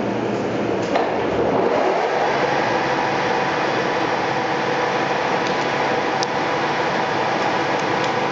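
TOS Trenčín SN 500 SA engine lathe running with its spindle turning a large round workpiece in the chuck: a steady mechanical whine from the headstock gearing with a few light clicks. About two seconds in, the low hum drops away and a steadier, higher whine takes over.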